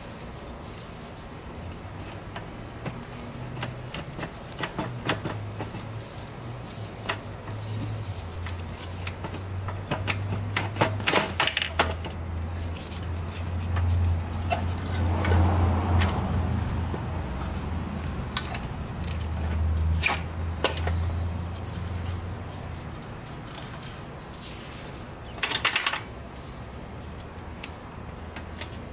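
Scattered metallic clanks, knocks and scrapes as the Yamaha YFZ450's engine is worked free and lifted out of the quad's steel frame, with a low hum underneath that swells in the middle.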